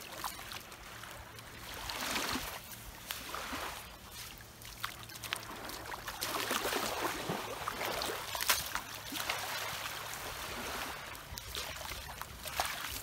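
Shallow sea water sloshing and splashing around the legs of someone wading with a long-handled dip net, coming in uneven swells a few seconds long, with scattered small splashes.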